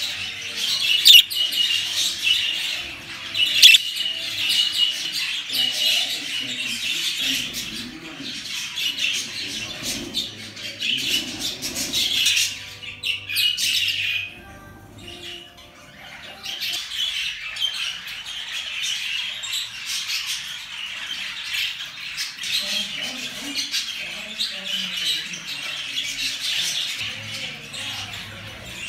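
Budgerigars chattering and warbling with sharp squawks mixed in. The chatter drops away for a few seconds about halfway through, where a few steady tones are heard, then picks up again.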